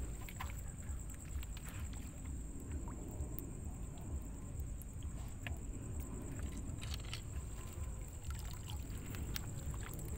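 Footsteps wading through shallow water over rocks: small splashes, sloshing and trickling, with scattered light clicks, over a steady low rumble.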